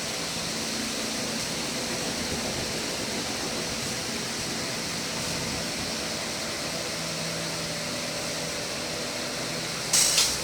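Steady room noise: an even hiss with a faint low hum, like an air conditioner or fan running. A sudden louder clatter starts near the end.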